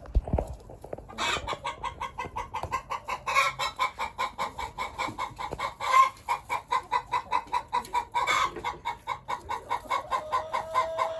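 Blue Laced Red Wyandotte roosters clucking in a fast, even run of several clucks a second, with a drawn-out rising call near the end.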